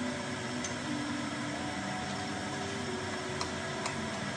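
Steady hum and hiss of a running household machine, with two faint clicks near the end.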